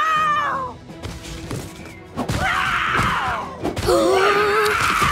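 Two cartoon lions growling and roaring at each other in turn: a pitched cry fading out in the first second, then two rough roars from about two seconds in, over background music.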